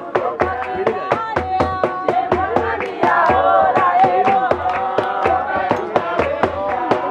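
A group of voices singing together to a steady beat of sharp strokes with low thumps.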